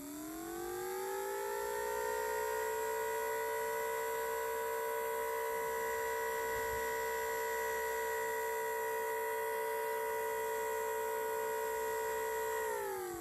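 Sentry 10V siren, three of its horns broken, winding up, holding a steady two-note chord for about ten seconds, then winding down near the end. It has an odd sound that the owner cannot account for.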